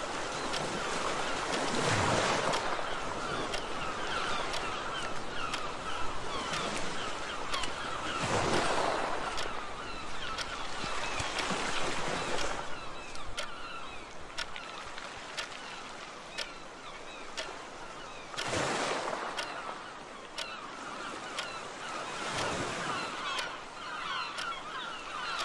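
Sound-effect track of sea waves washing in five times, with seagull calls and a clock ticking steadily over it.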